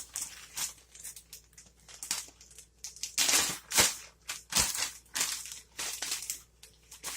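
Plastic ziplock bag crinkling in irregular bursts as it is handled with sugar-and-cinnamon-coated biscuit pieces inside, loudest about halfway through.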